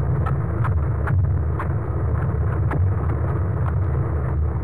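Underwater hydrophone recording of a garibaldi fish: irregular sharp clicks, about two a second, over a steady low rumble. The fish makes the noise by grinding its teeth out of anger.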